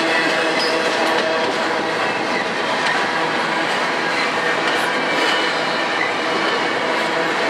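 Double-stack intermodal freight train's loaded container well cars rolling past close by: a steady loud rumble of steel wheels on rail, with faint steady ringing tones running through it.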